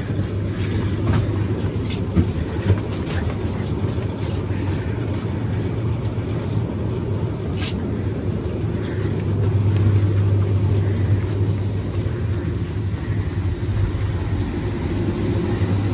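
Supermarket ambience: a steady low electrical hum from refrigerated cases and lighting, swelling briefly about ten seconds in, with scattered light clicks and footsteps of people walking the aisles.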